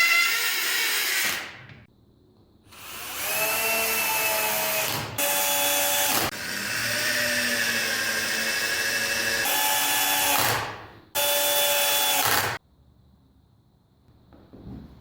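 Electric power tool, such as a drill, running in five bursts of one to four seconds each. Its motor whine rises in pitch as it spins up, and it stops for good a little after two-thirds of the way in.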